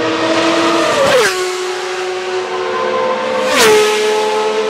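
Ferrari 333 SP race cars' 4.0-litre V12 engines at full throttle, passing close by at speed twice, about a second in and again about three and a half seconds in. Each time the high engine note drops sharply in pitch as the car goes past.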